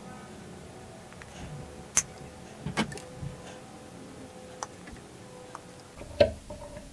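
A few separate sharp clicks and taps from fretting work on a tenor ukulele at the bench, the loudest about two seconds in and near the end.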